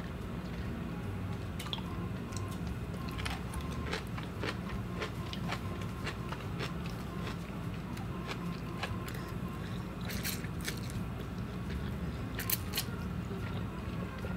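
Close-mic chewing and crunching, with many crisp clicks and a few louder crunches about two-thirds of the way through. A home furnace hums steadily underneath.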